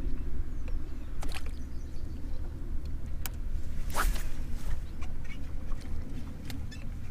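Steady low rumble of open-air ambience on a fishing boat, with a few sharp clicks and a short swish about four seconds in.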